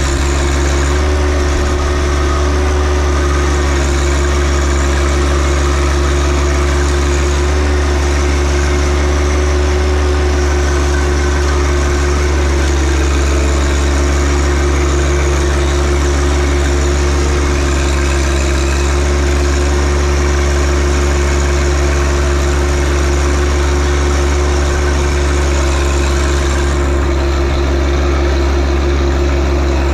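John Deere 1025R compact tractor's three-cylinder diesel engine running loud and steady at an even speed.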